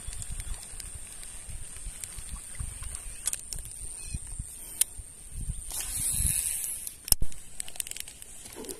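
Handling noise and low wind rumble from a baitcasting rod and reel being worked during a retrieve, with scattered sharp clicks and a short noisy rush about six seconds in. A thin steady high whine runs underneath.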